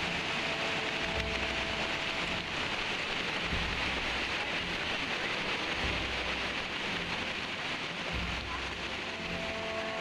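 Rushing water of a shallow, rocky river running over stones: a steady hiss, with a low thump about every two seconds.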